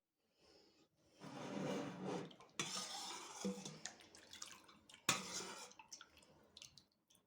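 Kitchen work sounds: water splashing, with dishes being handled, and two sudden louder sounds about two and a half and five seconds in.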